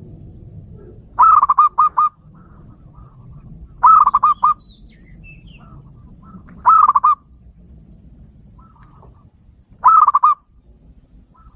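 Zebra dove (perkutut) cooing: four short phrases of rapid repeated notes, about three seconds apart. This is the perkutut lure call (suara pikat) used to draw in wild zebra doves.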